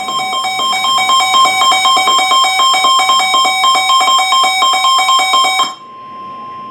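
NOAA Weather Radio 1050 Hz warning alarm tone held steady, signalling the severe thunderstorm warning about to be read. A weather radio's own alarm is sounding over it as rapid electronic beeps and stops abruptly about five and a half seconds in, leaving the steady tone alone.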